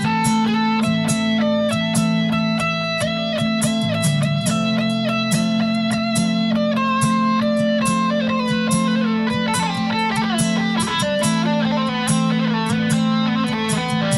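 Solo nylon-string guitar played fingerstyle: a quick run of plucked melody notes over sustained low bass notes, with the bass shifting about four seconds in.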